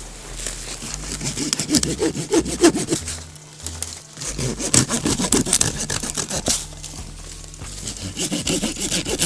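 A hand saw cutting through a tree limb in bouts of rapid back-and-forth strokes, pausing briefly about three seconds in and again about seven seconds in.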